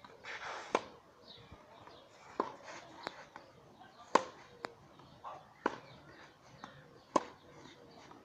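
Tennis ball struck back and forth in a baseline rally on a clay court: sharp racket pops and ball bounces every second or so, the loudest hits coming about every three seconds.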